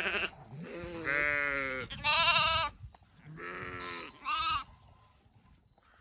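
Sheep bleating: about five calls in the first four and a half seconds. One is a long, lower call and the others are shorter and higher. The loudest comes about two seconds in.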